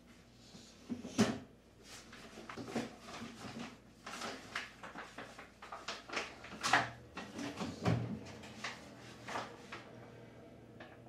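Irregular knocks and clatters of household objects being handled and set down, with the loudest knocks about a second in and again past the middle, over a faint steady low hum.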